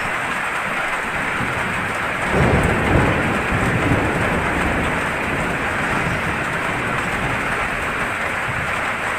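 Steady heavy rain, with a low roll of thunder rumbling in about two seconds in and fading away over the next few seconds.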